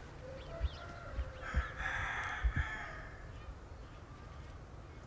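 A rooster crowing once, about two seconds in, with a few soft low thumps around it.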